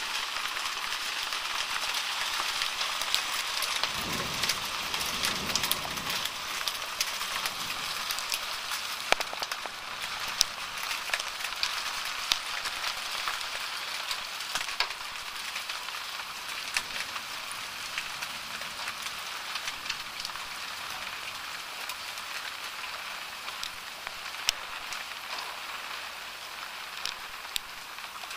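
Heavy downpour of rain and marble-sized hail, a steady hiss dotted with many sharp clicks of hailstones striking hard surfaces. A low rumble comes in about four seconds in and fades about two seconds later.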